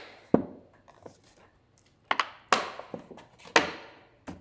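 Scissors snipping through a large thin-walled plastic water bottle: a series of sharp, crackling cuts at an uneven pace, one near the start, a quick pair about two seconds in, then two more toward the end.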